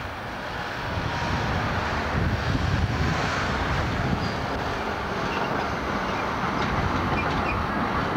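Articulated GVB tram running along street-embedded rails as it approaches and passes close by, the rumble of wheels on track getting louder about a second in and then holding steady.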